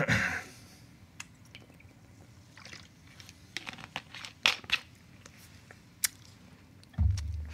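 Scattered small clicks and crunchy, crinkling handling noises, with a short rustle at the start and sharper clicks around four and a half seconds in.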